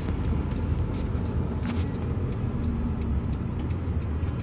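A car running: a steady low rumble of engine and road noise, with faint ticks at a regular pace.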